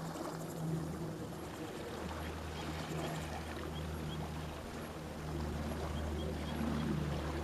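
River-bank ambience: an even hiss of flowing water under a steady low drone, with a few faint, short, high bird chirps.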